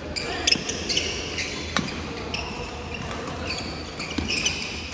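Badminton rackets striking a shuttlecock several times in a doubles rally, with sharp clicks and short high squeaks from shoes on the wooden court floor.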